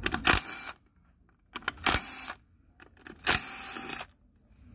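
Cordless power driver with a Torx bit spinning out the T30 bolts that hold a transmission bearing support. The motor runs in three short bursts of under a second each, with pauses between them.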